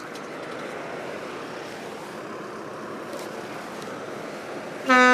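Steady hiss of wind and harbour water. Near the end a large ship's horn starts abruptly with one deep, steady note and keeps sounding, louder than everything before it.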